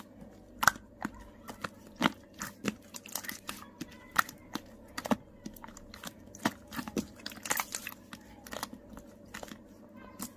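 Purple slime with mixed-in parts being pressed and worked by hand, giving irregular sharp pops and crackling clicks.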